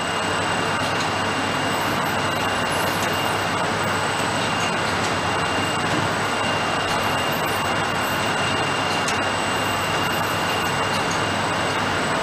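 Shrink-wrap packaging line with a flighted infeed conveyor running: a steady machinery hiss and hum with two thin high whines and a few faint ticks.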